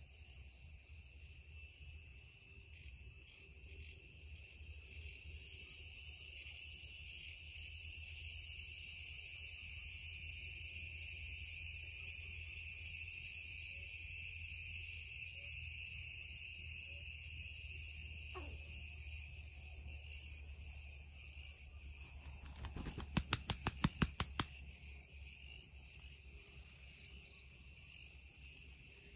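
Insect chorus: a steady high-pitched drone that swells for several seconds, then fades, over a low rumble. A short burst of rapid clicks comes about three-quarters of the way in.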